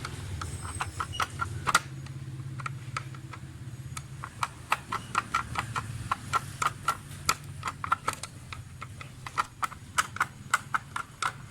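Slotted screwdriver being turned anti-clockwise to loosen a screw, giving a long run of short, sharp clicks, several a second, over a steady low hum.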